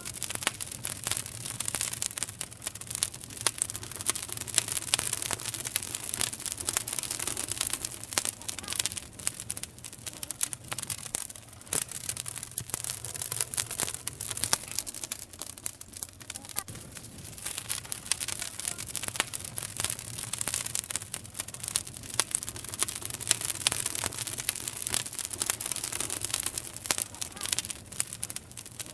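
Campfire burning with a steady stream of small crackles, broken by louder sharp pops now and then.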